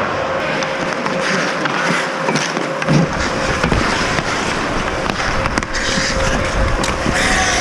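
Ice hockey play on the ice: skates scraping and carving, with sharp clacks of sticks and puck, over a steady faint hum.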